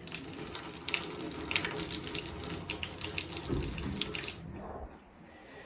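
Water running hard from a newly fitted tap, unevenly and with sharp spits, as water is pulled through the new pipework. It is shut off about four and a half seconds in.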